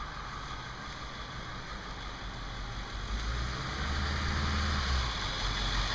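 Small school bus engine growing louder as the bus approaches and pulls up close, its low engine note building from about three seconds in.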